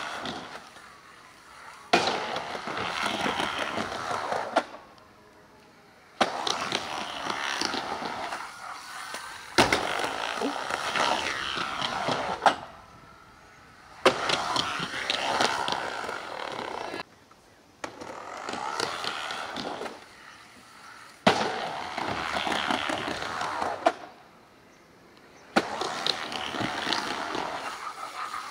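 Skateboards rolling fast on wooden ramps, heard in about seven separate runs with short quiet gaps between them. Each run opens with a sharp crack of the board landing or slapping down.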